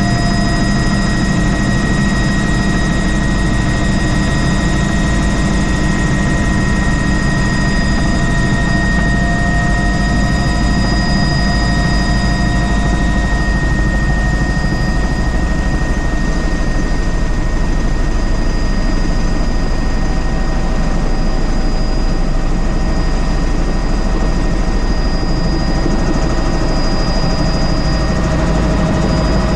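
Helicopter running steadily: a loud low rumble with a constant high engine whine over it.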